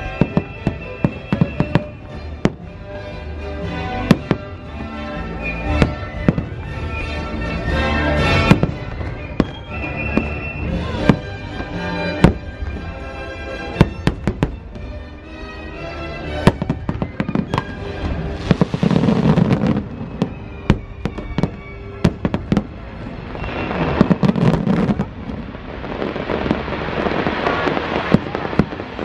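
Aerial firework shells bursting in quick succession, sharp bangs over the fireworks show's music. About two-thirds of the way in, and again near the end, the bursts thicken into a dense barrage.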